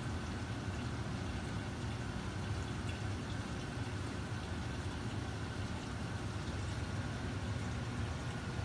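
Steady low hum of aquarium pumps with water running through the grow-out tanks' plumbing, with a faint steady whine above it.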